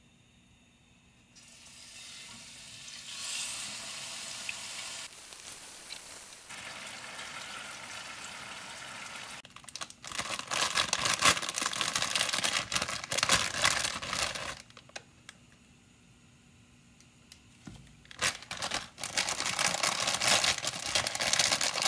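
Marinated short ribs sizzling in a pan with a steady hiss, then a pot of water at a rolling boil, bubbling and crackling louder. The boiling cuts off suddenly, and after a few quiet seconds it bubbles again with instant ramen noodles in the pot.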